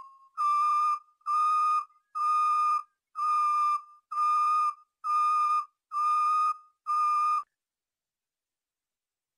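Moroccan 'flauta'-style canary training song: eight evenly spaced, flute-like whistled notes, all at the same steady pitch and each just over half a second long.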